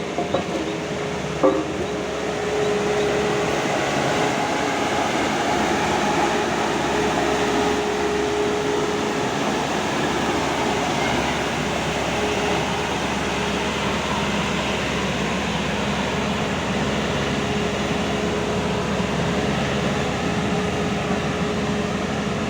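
Heavy diesel engine running steadily with a constant drone, and a sharp knock about a second and a half in.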